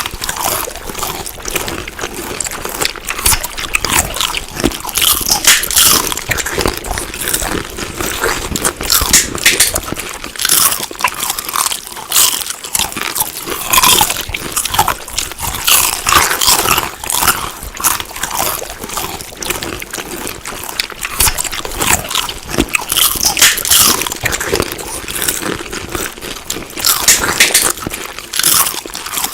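Crunchy food being bitten and chewed close to the microphone: dense, irregular crunching strokes that carry on throughout.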